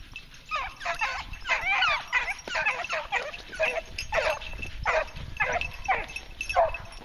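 Pack of hunting beagles giving tongue as they run a scent trail: a rapid series of overlapping yelping barks from several dogs, starting about half a second in.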